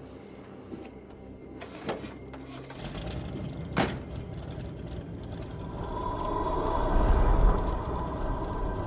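An old car's door clicking, then slamming shut once about four seconds in. A low rumble then builds and swells, loudest around seven seconds in.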